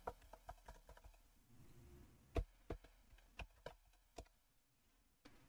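Faint, unhurried computer keyboard keystrokes: about ten separate key clicks at uneven intervals, one a little louder about two and a half seconds in.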